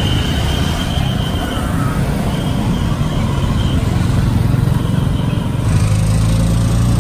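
Street traffic noise from scooters and cars passing close by, heard from a bicycle. About six seconds in it cuts to the steady drone of a small engine, heard from inside a moving tuk-tuk.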